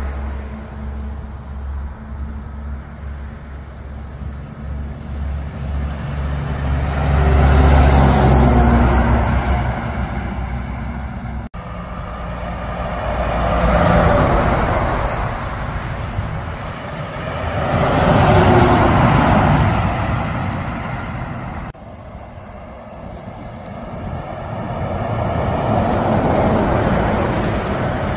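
Heavy trucks passing close by on a highway one after another, each engine drone and tyre noise building up and fading away, about four pass-bys in all. The sound cuts off abruptly twice, where one clip is spliced to the next.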